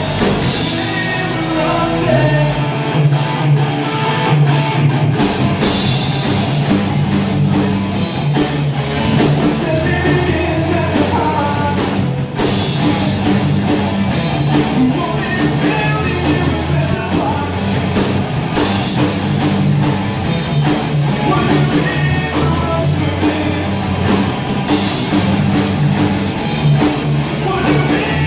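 Live rock band playing a loud song: distorted electric guitars over a drum kit, heard through the room of a small club.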